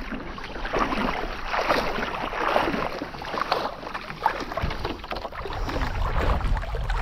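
Sea water splashing and sloshing around a person wading into the shallows, in uneven surges.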